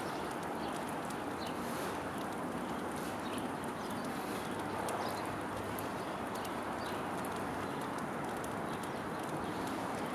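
Squirrel cracking and chewing sunflower seeds: quick, irregular small clicks over a steady background hiss, with a few short high bird chirps.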